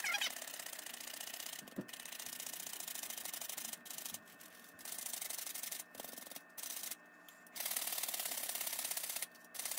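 Metal flour sifter being worked by hand over a stainless steel bowl, sifting cocoa powder and flour. It makes a rapid rasping, scraping rattle in several runs of a second or two, with short pauses between them.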